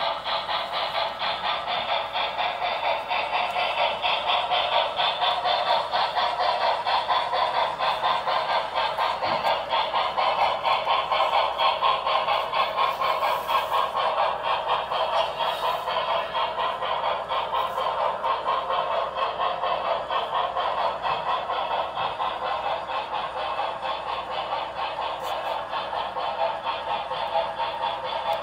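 HO-scale model train running on its track: a steady rolling rattle of wheels and small motor, pulsing in a fast, even stream of clicks.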